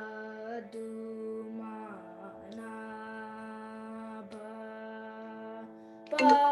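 A shruti box drone, heard over a video call, with a voice singing long held notes of a Carnatic line. Just before the end, a louder, sharply struck melodic sound cuts in.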